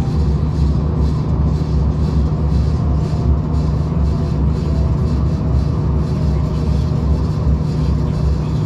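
Running noise of a V/Line regional passenger train heard from inside the carriage: a steady low rumble and drone, with a faint whine that glides slowly in pitch.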